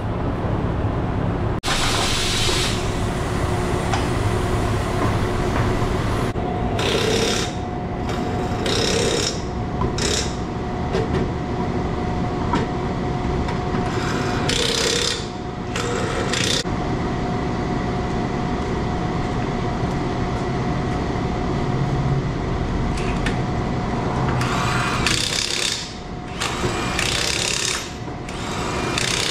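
Tire-shop air tools: repeated short hissing bursts from compressed-air tools, in ones and twos and a quick cluster near the end, over a steady mechanical hum.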